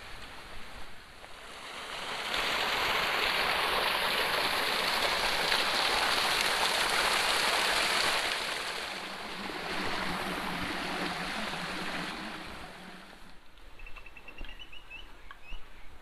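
Water rushing and splashing from a small waterfall pouring over a stone wall into a rocky stream. It swells about two seconds in, stays loud for several seconds, then eases and fades away near the end.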